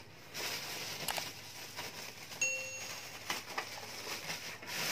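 Plastic bags rustling and a few light knocks as a mini hi-fi unit is handled, with a short steady high tone lasting about half a second midway.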